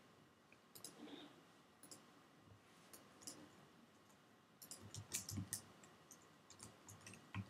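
Faint, scattered clicks of a computer mouse and keyboard, with a quick run of several clicks about five seconds in.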